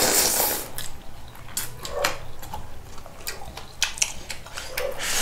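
Close-up eating sounds: crunchy chewing and biting, with irregular small clicks and crackles.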